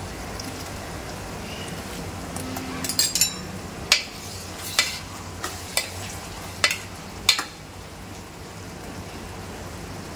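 Minced chicken and onions sizzling in a metal pot while a steel spoon stirs in chopped tomato. From about three seconds in, the spoon clinks sharply against the pot side several times.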